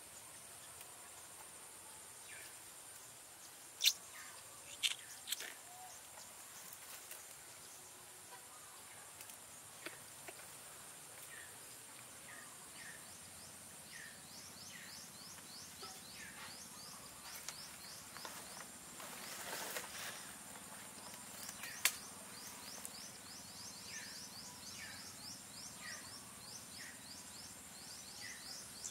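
Insects buzzing and chirping: a steady high-pitched drone, joined about halfway through by a fast run of short rising chirps. A few sharp clicks stand out about 4, 5 and 22 seconds in, with a short rustle about 20 seconds in.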